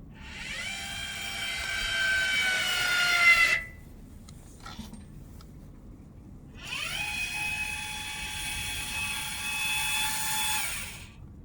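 Electric actuator motor of the snow plough blade running twice, raising and lowering the blade: two stretches of a motor whine, each three to four seconds long. The first starts straight away and its pitch sinks slightly as it runs; the second starts about seven seconds in, rises briefly as it comes up to speed and then holds steady.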